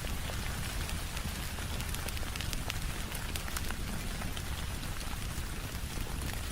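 Steady rain, a dense even patter with a low rumble underneath, mixed with scattered small crackles and pops of a wood fire.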